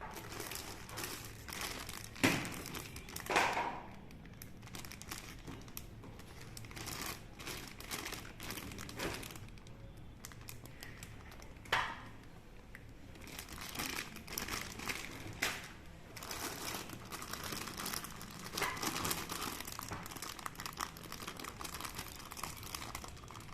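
Plastic packaging crinkling and rustling as the kit's contents are unwrapped and handled, in irregular bursts, with a few sharp clicks or knocks of parts being set down.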